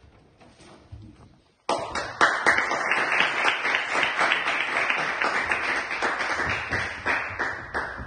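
Audience applauding, starting suddenly about two seconds in after a quiet moment, with many hands clapping at once.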